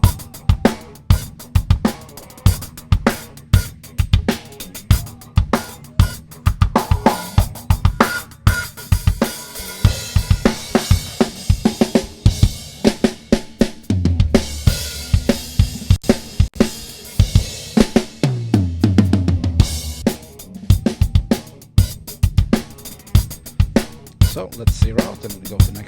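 Isolated drum-kit track from a live session recording, with kick, snare, hi-hats and cymbals playing a steady rock beat, heard through a Calrec PQ1549 clone equaliser. Low drum fills come about halfway and again about three-quarters through.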